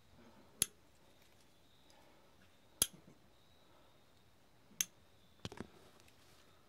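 Sharp metallic clicks of climbing hardware being handled, carabiners clipping on slings: three single clicks about two seconds apart, then a quick double click.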